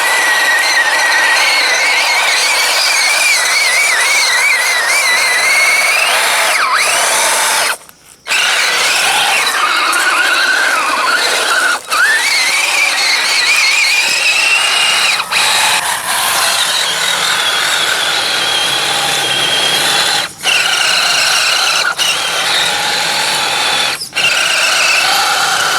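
Axial SCX10 1/10-scale RC truck's electric motor and gears whining under throttle, the pitch wavering and rising and falling as the throttle is worked. It cuts out briefly about eight seconds in, with several short dips later.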